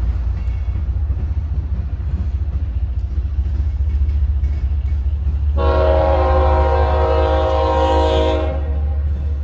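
Union Pacific ES44AC diesel locomotive's air horn sounding one steady chord of about three seconds, a little past halfway in, over the steady low rumble of the freight train.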